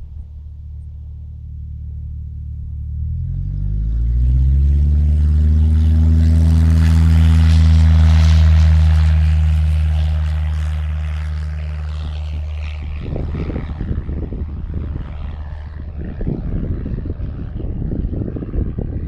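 Cessna single-engine propeller airplane: the engine and propeller pitch climbs about three seconds in as power comes up for the go-around after touchdown, grows loudest around eight seconds in, then fades away. Wind buffets the microphone in gusts through the second half.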